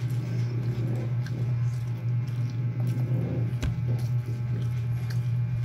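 A steady low hum, with faint small sticky mouth sounds and rustles of a baby eating puto maya sticky rice from a banana-leaf wrapper, and one sharp click a little past halfway.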